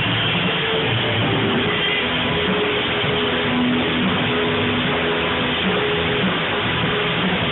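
A band playing live with loud guitars: a dense, steady wall of sound with held notes ringing over it.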